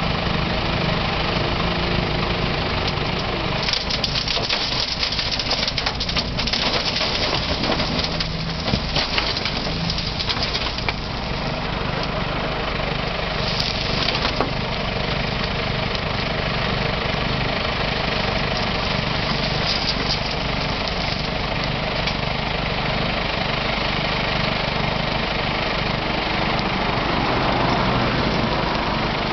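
A digger's diesel engine running steadily while it digs out old railway ballast. A few seconds in, a rough stretch of rock-and-gravel noise lasts for several seconds, with shorter bursts later.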